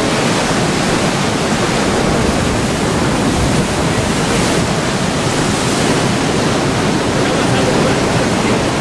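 Sea surf making a steady, unbroken rushing noise.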